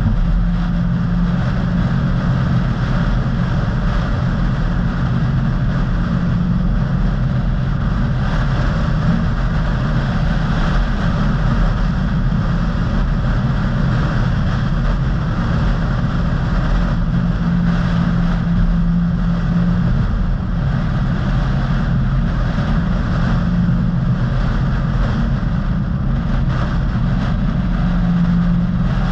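A car being driven at a steady pace: a continuous low engine drone with tyre and road noise, the hum swelling and easing slightly now and then.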